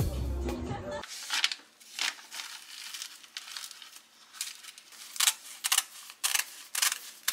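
Crisp sheets of dried laver and their plastic packaging crinkling as they are handled, then kitchen scissors snipping through the laver several times in the second half.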